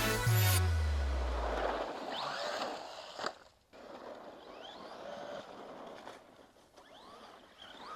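Background music cuts out with a low tone sliding down over about two seconds. Then faint hiss with several short rising whines, like a small electric RC truck motor throttling up in brief bursts, and a click a little past three seconds.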